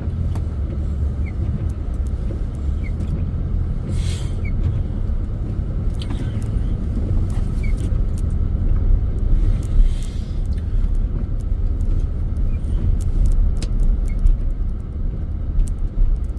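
Steady low rumble of a truck driving, heard from inside its cab, with faint scattered ticks over it.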